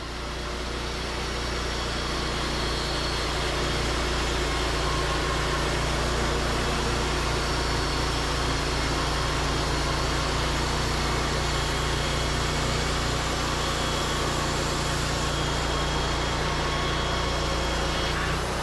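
Wood-Mizer LT40 portable band sawmill running under load, its band blade cutting through a white pine log: a steady engine note under the even hiss of the cut. It fades in over the first couple of seconds, then holds level.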